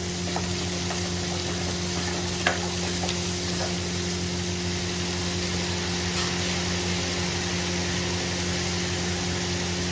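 Onion and ginger-garlic-chilli paste sizzling in hot oil in a pan as they are stirred, with a few light clicks of the spoon against the pan, the clearest about two and a half seconds in. A steady low hum runs underneath.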